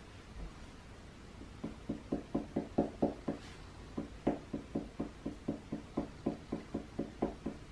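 Water-based marker tip tapped rapidly onto paper on a wooden tabletop, dotting in texture. A quick run of light taps, about five a second, starts about a second and a half in.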